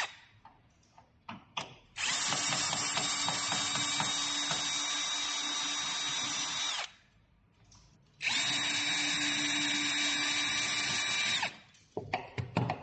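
Cordless power screwdriver running to back out screws: two long steady whirring runs, the first about five seconds, the second about three, with short clicks near the end.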